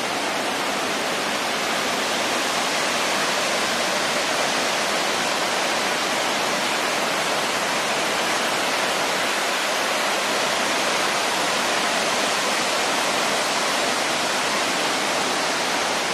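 Waterfall: water pouring over rock ledges and falling into a plunge pool, a steady, unbroken rush.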